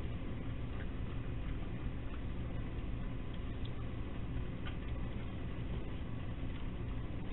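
Steady hiss and low hum from a security camera's microphone, with faint irregular clicks of raccoons eating dry food from a dish.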